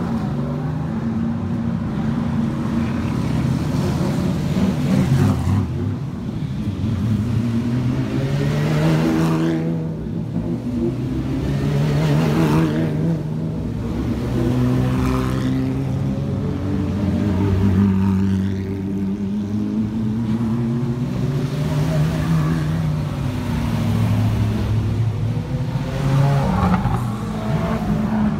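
Race car engines, Porsche 911 flat-sixes and a Trans Am Camaro V8, running at low speed as the cars roll past one after another. The engine note rises and falls with throttle blips and swells as each car nears.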